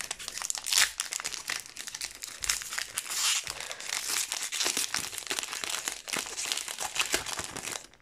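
Foil wrapper of a Pokémon TCG Brilliant Stars booster pack crinkling and tearing as it is pulled open by hand: a dense run of crackles, with louder rips about a second in and again around three seconds in.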